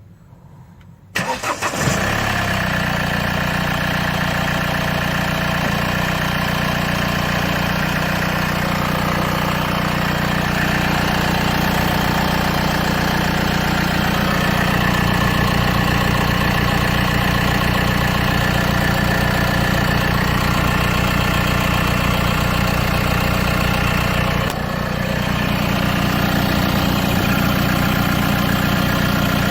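Mercedes OM640 four-cylinder diesel cold-started: it cranks briefly about a second in, catches and settles into a steady idle. The idle note shifts about halfway through and dips briefly near the end.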